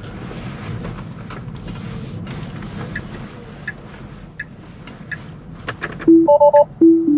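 Inside a Tesla Model 3's cabin, steady road noise with faint regular ticks about every 0.7 s. About six seconds in, the car sounds a loud series of electronic chimes, low tones alternating with quick higher double beeps. This is the car's alert as it refuses to engage Full Self-Driving Beta.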